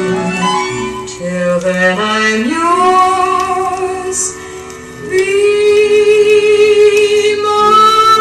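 Recorded ballad music playing through a JBL Hartsfield loudspeaker: long held melody notes over accompaniment, with a slide upward in pitch about two and a half seconds in.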